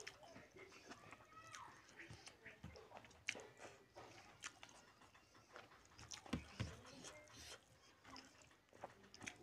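Close-up eating sounds: mouth chewing and lip-smacking, with wet squelches of fingers mixing rice into curry. A few sharper smacks come about three and six seconds in.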